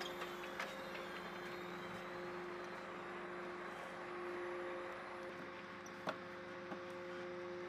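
Steady hum of running flight-line machinery, such as a refuelling truck's engine and pump, with a few light metallic clanks as a heavy fuel hose is handled and coupled to a fighter jet's refuelling port.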